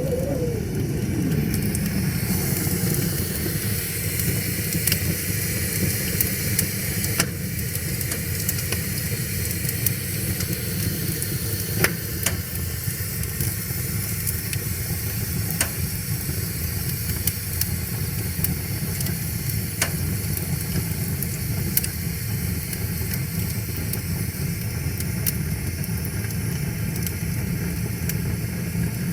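Wood fire crackling, with scattered sharp pops every few seconds over a steady low rush of river water and an even hiss. A brief wavering tone slides down in the first second.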